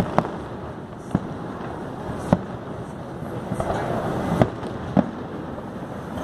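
Fireworks shells bursting: five sharp bangs at irregular intervals, over a steady background noise.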